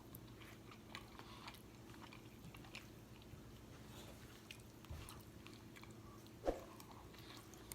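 Faint close-up chewing and mouth sounds of a person eating, with scattered soft clicks and one louder click about six and a half seconds in.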